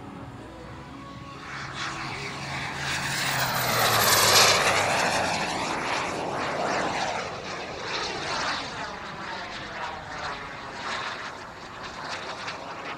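Model jet's gas turbine engine making a low fly-past: a rushing whoosh that swells to its loudest about four seconds in, with a high whine that falls in pitch as it goes by, then carries on more quietly as the jet climbs away.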